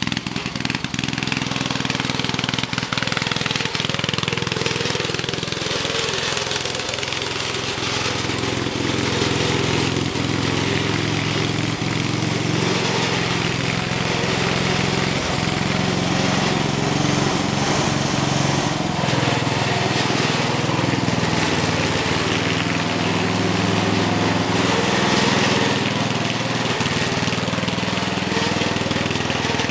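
Small engine of a homemade ice resurfacer running steadily as it drives laps on the ice, its pitch wavering a little.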